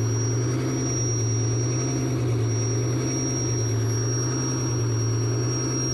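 Straight-piped Detroit Diesel 12V71 two-stroke V12 in a 1975 Peterbilt pulling a loaded lowboy trailer through dual 6-inch stacks, running with a steady, loud, low drone.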